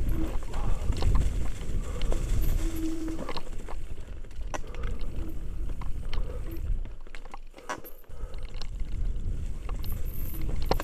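Mountain bike descending a rough, rocky trail: steady wind rumble on the helmet camera with frequent sharp clicks and knocks as the bike rattles over stones and roots. The rumble drops away briefly about seven seconds in, then comes back.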